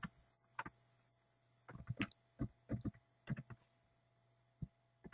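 Faint computer keyboard keystrokes: a dozen or so separate key presses in small irregular groups as figures are typed in, over a faint steady low hum.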